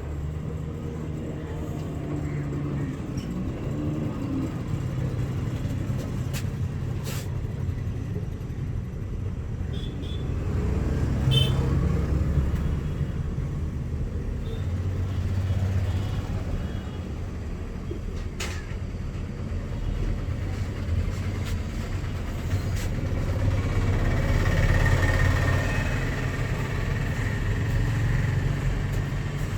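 Road traffic: cars and buses running and passing, a steady low rumble that swells and fades, with a couple of sharp clicks, one early and one past the middle.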